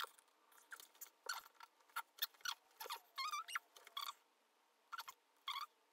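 Faint scratchy clicks and rustles as a tear-stain remover pad is pulled from its plastic tub and wiped over a Persian cat's face, with a short wavering high cry from the cat about three seconds in and a brief one near the end.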